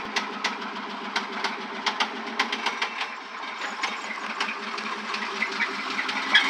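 1996 Chevrolet Suburban's 5.7-litre V8 idling with a sharp, slightly irregular knock about three to four times a second: rod knock from a failed connecting-rod bearing, which the owner suspects came from low oil pressure. A brief louder sound comes near the end.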